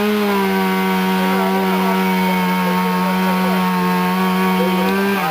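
Two-stroke chainsaw held at full throttle, running at a steady high pitch, with the revs dropping away right at the end.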